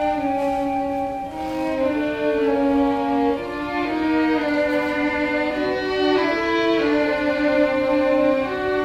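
String orchestra of violins and cellos playing slow, sustained chords that shift every second or so.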